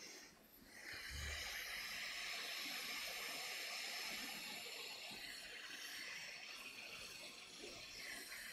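Quick 861DW hot air rework station blowing a steady hiss of hot air, reflowing solder balls through a stencil onto a BGA chip. The hiss drops away briefly just after the start and comes back about a second in, with a soft low thump at that moment.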